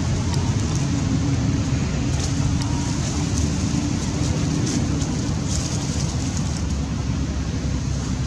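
Steady low outdoor rumble with a faint hum, like wind or distant engine noise, and a few faint high clicks in the middle.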